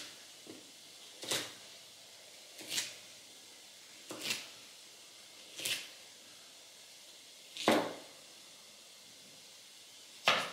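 Chef's knife chopping zucchini on a plastic cutting board: six separate chops, about one every one and a half seconds, the last two loudest.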